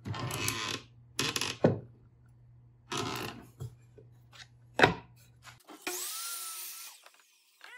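A pine board scraping and knocking as it is slid against a miter saw's fence and table: several short scrapes and a few sharp knocks. Near the end comes a short steady whir with a rising whine from the Ryobi sliding compound miter saw as its head is brought down onto the board. The whir stops about a second later.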